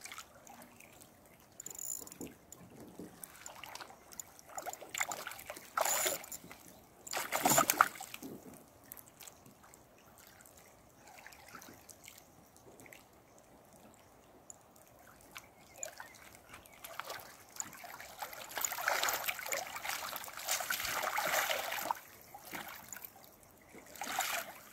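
Water splashing and trickling in irregular bursts as a hooked rainbow trout is lifted out of the water, with the loudest splash about seven seconds in and a longer run of splashing near the end.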